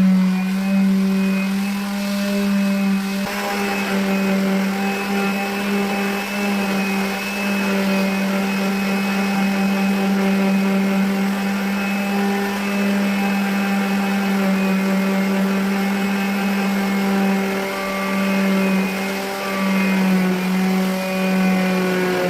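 Dongcheng electric sander running steadily while sanding a plywood surface smooth, its motor holding one even hum throughout.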